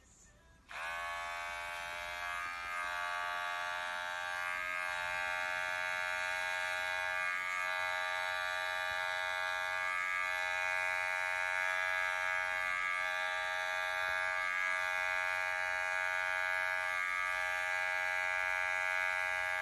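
Electric pet hair clipper switching on about a second in, rising briefly in pitch as its motor spins up, then buzzing steadily while trimming the fur on a cat's paw.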